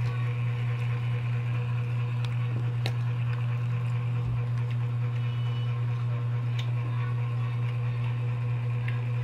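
A steady low hum runs unchanged throughout, with a few faint, scattered clicks and taps from people eating by hand.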